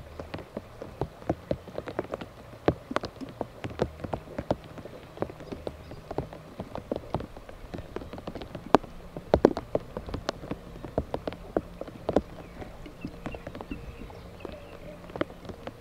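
Raindrops falling on a hard surface: irregular sharp taps, several a second, over a low steady hum.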